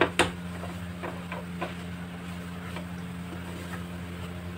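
Wooden spatula knocking and scraping against a nonstick kadhai while stirring a thick paneer mixture: two sharp knocks right at the start, then lighter taps now and then, over a steady low hum.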